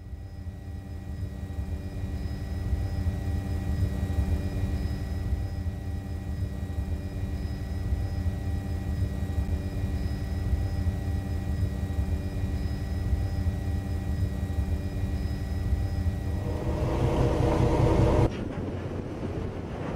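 Steady low motor drone with a thin, high steady whine over it. Near the end, a rushing noise swells and cuts off suddenly.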